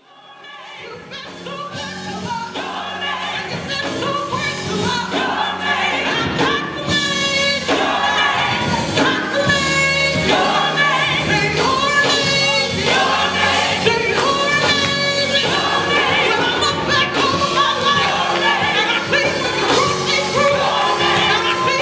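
Gospel choir singing with instrumental accompaniment, fading in over the first few seconds.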